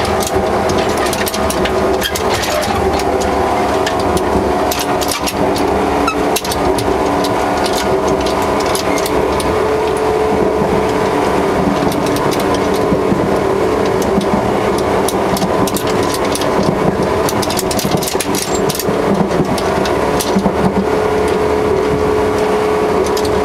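On-board running noise of a JR 115 series 3000 subseries electric multiple unit, recorded near the coupler: a steady hum under the car with the coupler knocking and rattling throughout.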